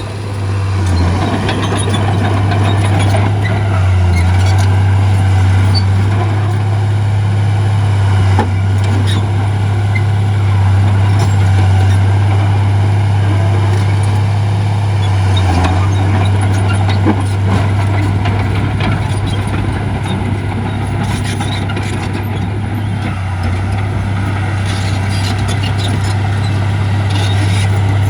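Heavy earthmoving machinery running steadily at a constant low engine drone, with a few scattered knocks and clanks.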